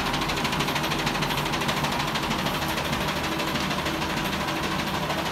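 A DTF film printer and its powder shaker running together: steady machine noise with a fast, even pulse, as printed transfer film feeds through the shaker.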